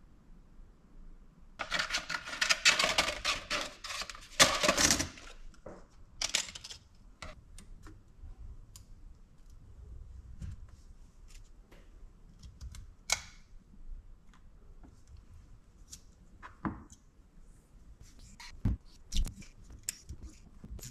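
Adhesive tape being pulled off its roll with a crackling rip for about three seconds, starting a couple of seconds in. Shorter pulls and scattered light clicks and taps follow as the tape is wrapped around cylindrical 21700 lithium-ion cells.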